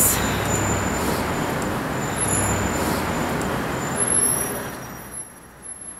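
Street traffic noise: a motor vehicle passing close on the road, a steady rushing sound that dies away about four to five seconds in.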